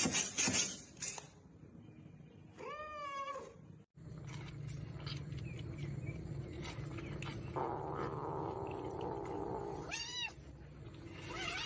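A cat meowing: one long meow about three seconds in and two shorter meows near the end, over a steady low hum, with some clattering at the start.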